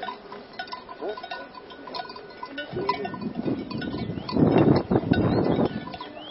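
Bells on grazing cattle clanking irregularly. A louder rushing noise sets in about halfway through and fades near the end.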